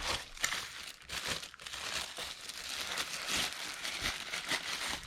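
Packaging crinkling and rustling in a steady run of short, sharp crackles as lock parts are handled and unpacked.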